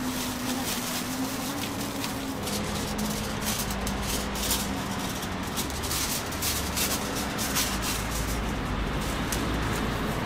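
Thin black plastic carrier bag rustling and crinkling in short bursts as it is opened and a wrapped toast is packed into it, over a steady low hum.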